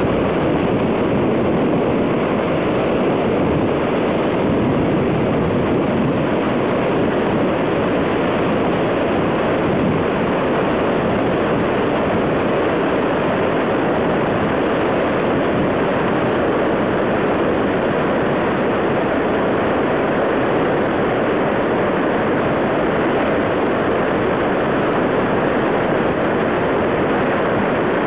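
River in flood, a torrent of whitewater roaring down a rocky gorge: a loud, steady rushing noise that never lets up.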